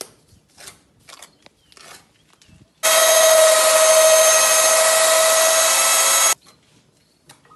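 Electric paddle mixer stirring cement mortar in a plastic bucket: the motor starts about three seconds in, runs loud and steady at one speed, and stops abruptly about three and a half seconds later. Before it, a few faint scrapes and knocks.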